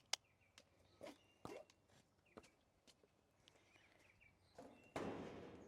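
Faint scattered knocks of a pony's hooves shifting on a hard floor, with birds chirping faintly; about five seconds in, a short hiss of detangler spray.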